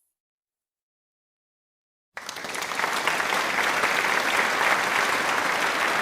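Applause: a dense, even clapping that starts suddenly about two seconds in, out of silence.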